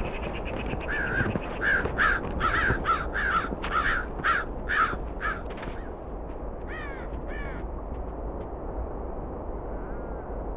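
Corvids calling: a run of about ten harsh caws, two or three a second, then a few higher, falling notes about seven seconds in, over a steady background hiss.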